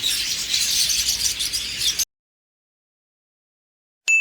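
Many caged birds chirping and twittering together in a dense, continuous chatter that cuts off suddenly about halfway through. After about two seconds of dead silence, a sharp, steady high electronic tone starts near the end.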